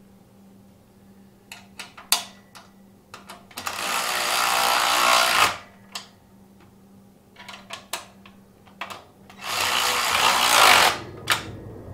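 Ryobi cordless drill/driver running in two bursts, the first about two seconds long and the second about a second and a half, driving fasteners into a metal workbench frame. Short clicks and knocks of metal parts being handled come between the bursts.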